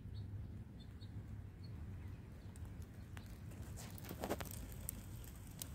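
Scattered light taps and crackles over a low steady rumble outdoors, the taps starting about two and a half seconds in and clustering about four seconds in.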